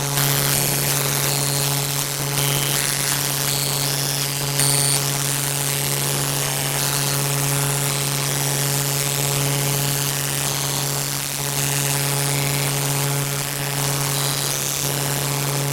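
Loud steady mechanical or electrical drone: a low hum with even overtones over a constant hiss, holding level throughout.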